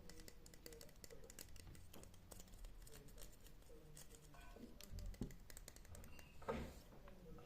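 Faint, irregular light tapping and clicking, with a brief louder rustle near the end.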